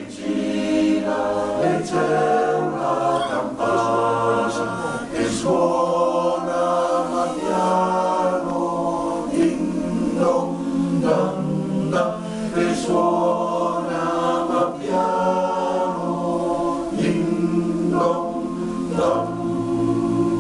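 Male choir singing a cappella in several parts, holding chords that move from one to the next every second or so.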